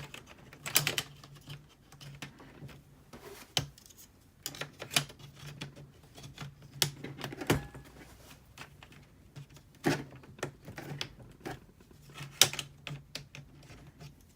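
Irregular plastic clicks and taps as laptop screen-assembly parts are handled and pressed into place.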